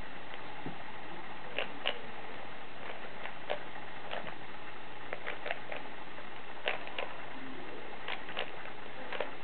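Rubik's Cube being turned rapidly by hand during a speed solve: irregular plastic clicks as the layers snap round, over a steady background hiss.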